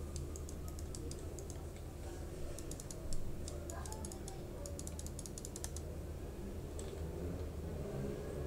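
Computer keyboard keys clicking in quick runs, with gaps between bursts and a soft thump about three seconds in, over a steady low electrical hum.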